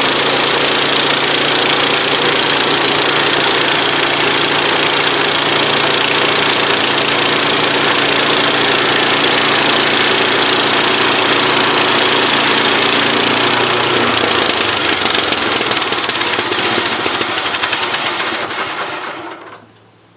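Portable bandsaw mill's petrol engine running loudly and steadily with its new band blade on a trial cut; the engine note changes about fourteen seconds in, and the sound dies away and cuts off near the end.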